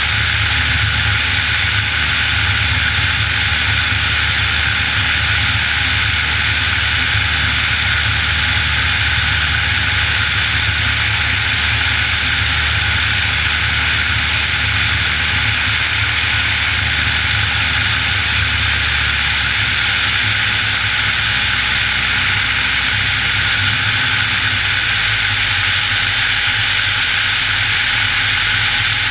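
Piper Warrior's Lycoming O-320 four-cylinder engine and propeller, heard from inside the cockpit as a steady loud drone under a strong rushing hiss. The low engine note steps down twice in the second half as power is reduced on final approach.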